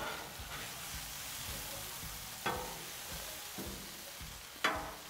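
Rotisserie potatoes and oiled asparagus sizzling on a hot steel griddle top, with a metal spatula scraping and clinking against the steel twice, about halfway through and near the end.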